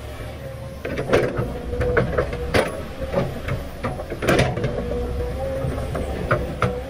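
Large Komatsu PC500LC hydraulic excavator digging. Its diesel engine drones steadily under load, and from about a second in the steel bucket clanks and scrapes repeatedly as it bites into the rocky earth.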